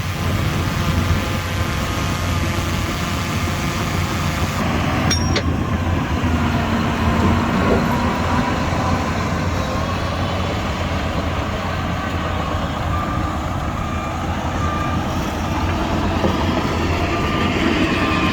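Shantui DH17C2 bulldozer's diesel engine running steadily under working load, with a single sharp clank about five seconds in.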